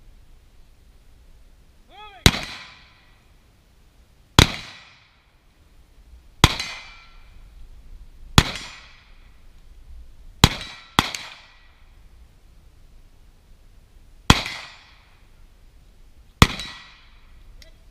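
Carbine fired in eight single shots, about one every two seconds with a quick pair near the middle, each shot followed by a brief metallic ring.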